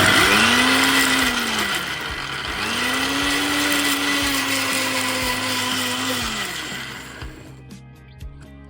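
Electric blender grinding chopped onions into a paste. It makes a short run of about two seconds, then a longer run of about four seconds, the motor pitch rising as it spins up and falling as it winds down each time. It stops about seven seconds in.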